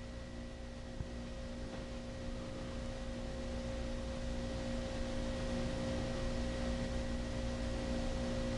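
A steady hum made of a few fixed tones over low background noise, growing slowly louder, with one small tick about a second in.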